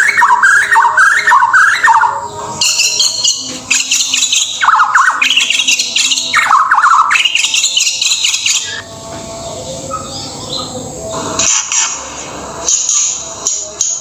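White-rumped shama (murai batu) singing: fast, varied whistled phrases with quick swoops in pitch, dropping to a quieter stretch about two-thirds of the way through before the phrases pick up again.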